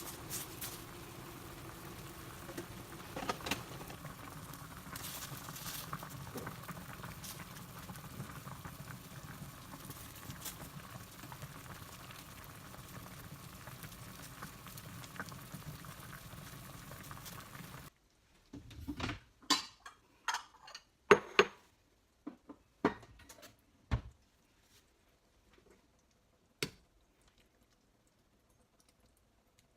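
Food cooking on a stove: a steady bubbling hiss with small pops. It cuts off abruptly about two-thirds of the way in, followed by scattered sharp clicks and knocks.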